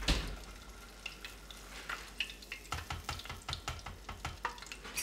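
Spring rolls sizzling in hot deep-fryer oil, with metal tongs clicking and tapping against the pot again and again as the rolls are lifted out to drain.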